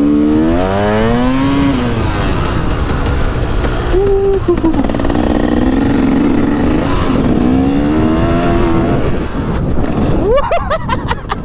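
KTM 300 EXC two-stroke dirt bike engine revving up and falling back repeatedly as it is ridden around the track, its pitch rising and dropping several times, with wind buffeting the microphone.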